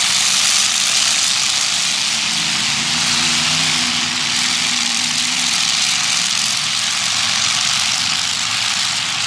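Demolition derby cars' engines running, a steady loud din with some wavering engine pitch and no sharp crashes.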